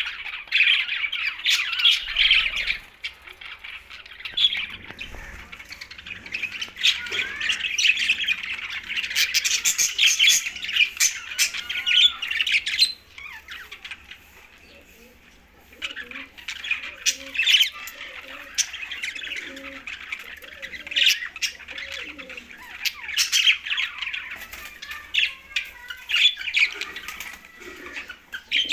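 A group of green budgerigars chattering and squawking in many overlapping short calls, dying down for a few seconds in the middle and then starting up again.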